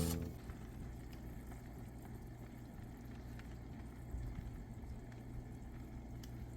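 Faint, steady low hum of a small motor running, with a light hiss over it.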